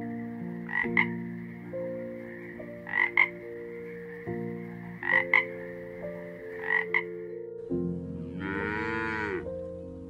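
A frog croaking four times, about two seconds apart, each call a quick double note. Then a cow moos once near the end, its pitch rising and then falling.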